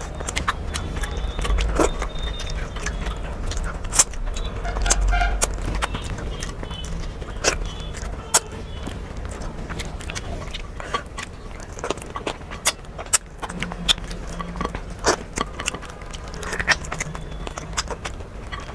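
Close-miked eating sounds: wet chewing, lip smacks and many sharp mouth clicks, as mouthfuls of rice and fish curry are eaten by hand.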